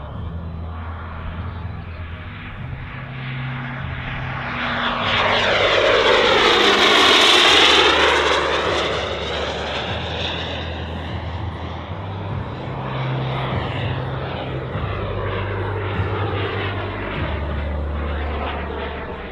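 JetCat P400-Pro-LN turbine of a large-scale Fiat G.91 RC jet model in flight, a steady jet rush and whine. It swells to its loudest about seven seconds in as the model makes a pass, then eases off and runs on steadily as the model flies away.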